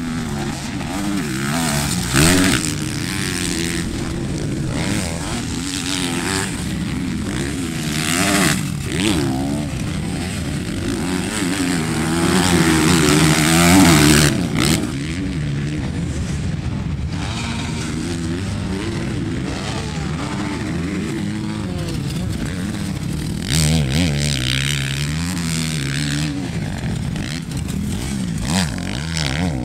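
Motocross dirt bike engines revving up and down as the riders accelerate and shift around the track. They are loudest about 12 to 14 seconds in, as a bike passes close.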